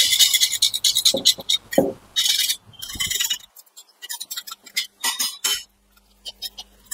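Metal engine parts clinking and scraping as they are handled and cleaned: a busy, irregular run of sharp clinks and knocks, with a few short scraping rasps and a brief pause near the end.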